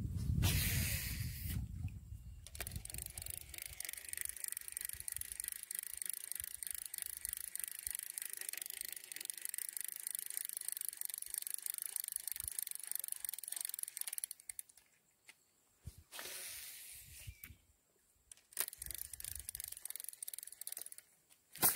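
A fishing reel being cranked steadily to retrieve a lure, a fast fine ticking that stops about 14 seconds in, followed by a few short turns. A low rumble of handling fills the first two seconds.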